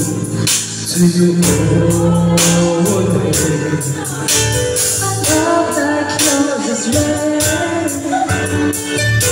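Karaoke: men singing into microphones over an amplified backing track with a steady drum beat.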